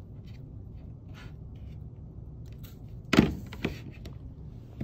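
Faint handling of copper wire and hand tools, then two knocks a little past three seconds in, the louder first, as steel pliers are laid down on the tabletop, with another small knock near the end.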